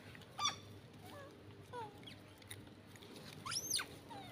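Long-tailed macaques giving short high-pitched squeaks and squeals, several in turn; the loudest, near the end, sweeps up in pitch and back down.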